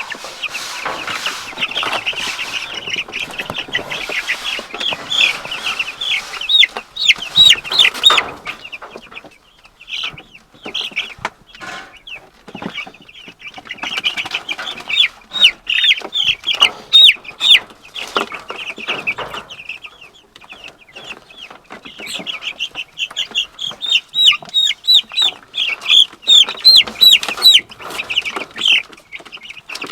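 A group of young meat chickens peeping, many short high calls overlapping, each falling in pitch, in louder spells with quieter gaps between. A few short knocks and rustles are mixed in.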